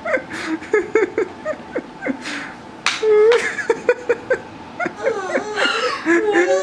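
Laughter in short chuckles and snickers. Near the end a baby starts to fuss and whimper on the edge of crying.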